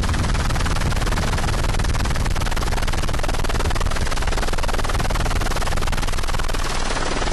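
Helicopter in flight, heard from on board: a rapid, even rotor chop over a dense rushing noise.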